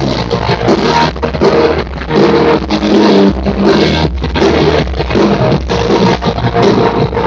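Loud dance music with a steady beat, played back with its highs cut off.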